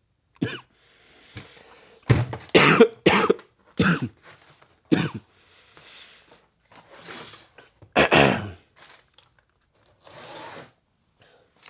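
A man coughing in a fit, about seven coughs, clearing his throat and drawing breath between them; the last, about eight seconds in, is among the loudest. He is sick, coughing from a cold.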